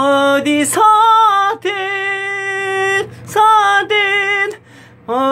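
A man singing a slow ballad line in short phrases, holding high notes with vibrato, with brief breaths between phrases.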